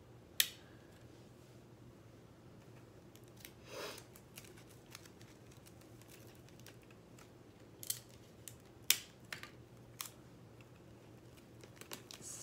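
Hands handling craft materials, pipe cleaners and a foam pool noodle: scattered light clicks and taps, the sharpest just after the start and about nine seconds in, with a brief rustle about four seconds in.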